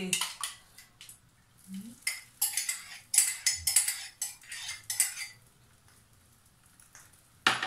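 Metal spoon clinking and scraping against a ceramic mug in two quick spells over the first five seconds, as beaten egg is scraped out into a frying pan. A single sharp knock near the end.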